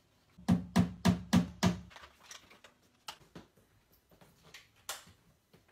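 A quick run of five even thumps, about three a second, with a low hum under them, followed by fainter scattered taps of footsteps in slides on a hard floor.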